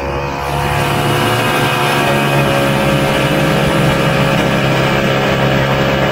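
1967 Ski-Doo Olympic snowmobile's single-cylinder two-stroke engine running loud under throttle while the sled is ridden over snow. The revs climb in the first second, then hold steady.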